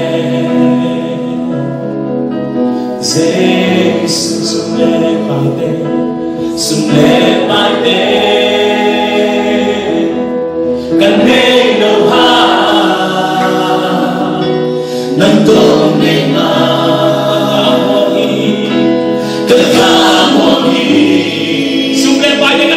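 Choir singing a Zomi gospel worship song in held, sustained phrases over a low accompaniment.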